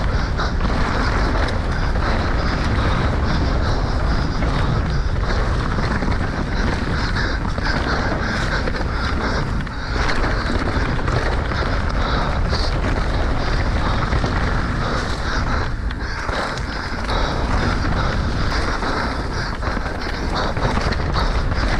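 Wind rushing over a GoPro microphone on a fast mountain-bike descent, mixed with the tyres rolling over dirt and stones and the bike rattling over the bumps. It is a steady, loud rush full of small knocks, with brief dips about ten seconds in and again a little after fifteen seconds.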